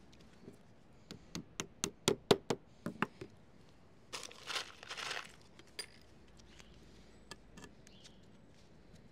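Hammer tapping during leadwork: a quick run of about ten sharp metallic strikes, loudest around two seconds in. A short scraping rustle follows about four seconds in, then a few faint ticks.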